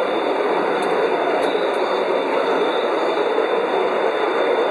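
A 5-inch gauge ride-on garden railway train running steadily along the track: a continuous rolling rumble of wheels on rail with a steady high whine over it and a few light clicks.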